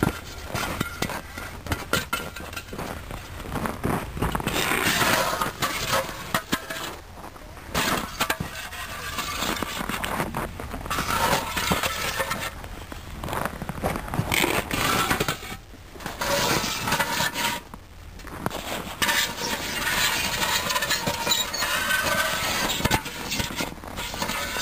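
Footsteps crunching over icy, crusted snow and broken snow chunks, a steady crisp crackle and breaking with each step, easing off briefly a few times.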